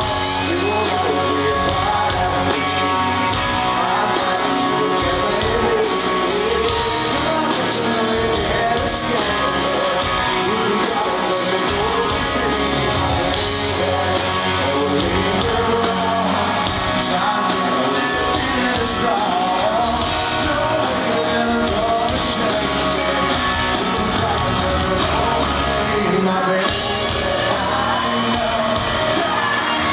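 Live rock band playing the song, with a male voice singing over the band.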